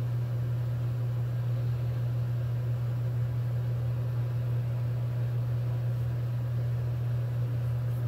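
A steady low hum with a faint hiss over it, unchanging in pitch and level.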